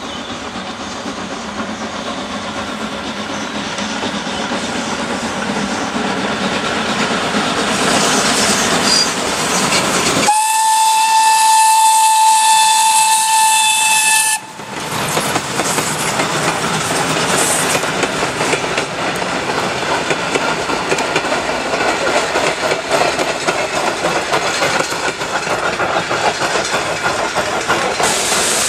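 A Ty2 2-10-0 steam locomotive passing with its train, its running noise and steam hiss growing louder as it approaches. About ten seconds in, a steady steam whistle blast sounds for about four seconds and cuts off sharply, after which the rumble and clatter of the passing coaches continue.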